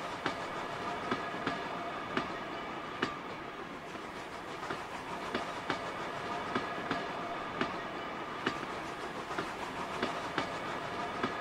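Dapol O gauge model Terrier locomotives hauling a freight train on Peco track: a steady electric motor hum over the rolling noise of the wheels. Sharp clicks come about every half second to second as the wheels pass over the rail joints.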